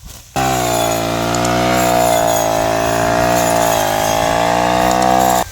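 A motor running loud and steady at an even pitch, cutting in suddenly about half a second in and cutting off just before the end.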